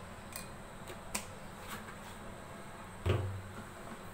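A few light clicks and taps as a plastic measuring spoon and the mixing bowl are handled, then one louder knock with a dull thud about three seconds in.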